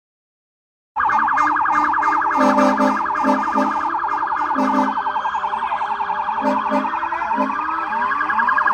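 Emergency vehicle sirens in a fast yelp, starting about a second in, with several rising wails in the second half. Several short, low horn blasts sound over them.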